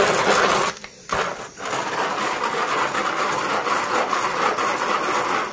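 Hand-cranked food chopper being cranked: its blades spin inside the plastic bowl and rattle the dry crumbs in a continuous grinding whirr, broken twice briefly about a second in, and stopping at the end.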